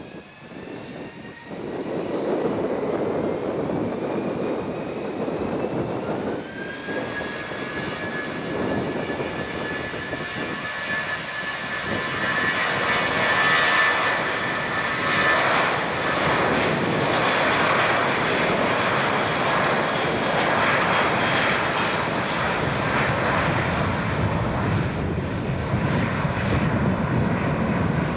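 Jet engines of a Vueling Airbus A320-family airliner spooling up to take-off thrust. A whine rises in pitch about six seconds in and then holds steady, and the engine noise gets louder again about halfway through.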